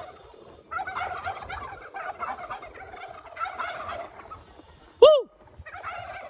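A flock of turkeys gobbling together in long rattling bursts, the sort of shock-gobble a loud noise sets off. About five seconds in, a person's loud rising-and-falling "woo!" whoop, the loudest sound here, is followed at once by the flock gobbling again.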